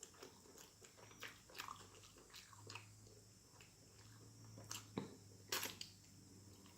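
A person chewing and biting grilled chicken close to the microphone: faint, irregular mouth clicks and smacks, with a few louder ones in the second half.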